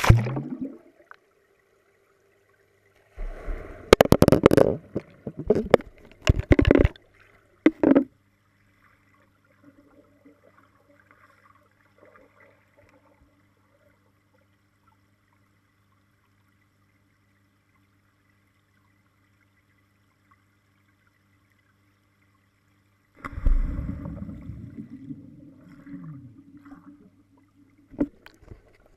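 Muffled underwater sound in a swimming pool: a plunge at the start, then bursts of bubbling and gurgling from about three to eight seconds in and again near the end. Between them only a faint steady low hum is heard.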